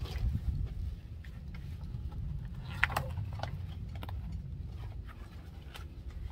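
A glued-on vapor barrier sheet being peeled off a car's inner door panel, the adhesive letting go in scattered crackles and ticks, with one louder crackle about three seconds in, over a low steady rumble.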